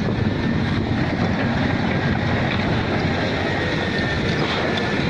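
Heavy truck engine running steadily as a low rumble, with wind buffeting the microphone.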